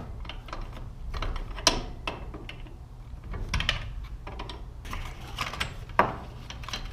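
Open-end wrench clicking and clinking against the square set screws on a garage door torsion spring as they are loosened: irregular metal clicks, the sharpest about a second and a half in and again near the end.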